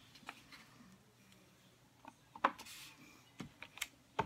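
Clear acrylic stamp block knocking on a stamp pad and the desk while a stamp is inked: a few light clicks and taps, the sharpest about halfway through, with a brief rustle of paper and several quicker taps near the end.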